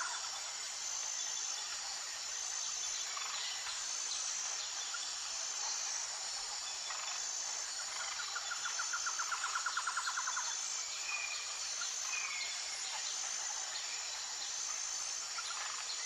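Outdoor forest ambience: a steady high hiss with a thin, pulsing high insect tone over it, and birds calling, including a fast rattling trill a little past the middle and a few short calls after it.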